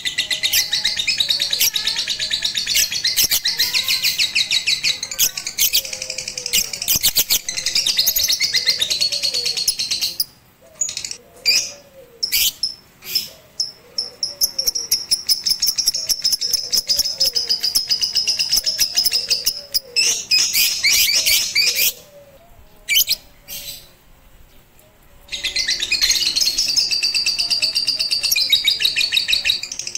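Lovebird singing a long, rapid, high-pitched chattering trill. It breaks into a few short chirps about ten seconds in, runs on again, stops for a few seconds, then starts again near the end.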